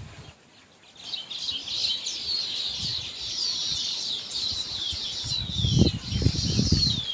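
Small birds chirping, a dense chorus of quick, high, falling chirps that starts abruptly about a second in. Low thumps and rumble come near the end.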